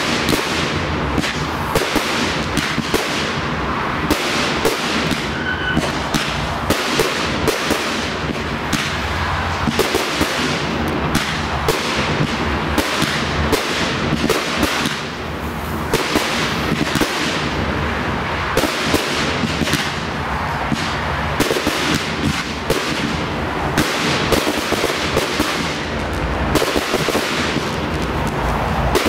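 Professional fireworks display: a dense, near-continuous barrage of overlapping bangs and crackles from shells bursting, many per second.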